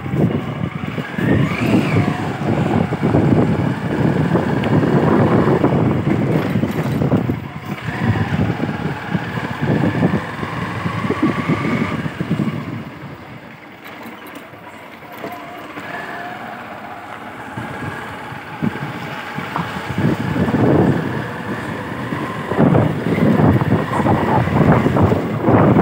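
A two-wheeler riding through the streets, with wind buffeting the microphone over the engine. The engine's whine rises steadily as it picks up speed several times. The wind noise eases for several seconds in the middle.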